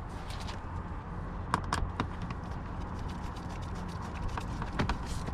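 Scattered small clicks and taps of a screwdriver, screws and plastic trim parts as the screws are put back into a car's interior door handle assembly, over a steady low hum.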